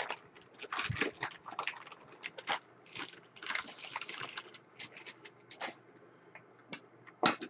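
Clear plastic bag crinkling in irregular bursts as a floppy disk drive mechanism is pulled out of it, then a few light clicks of handling and one sharp knock near the end as the metal drive mechanism is moved on the wooden table.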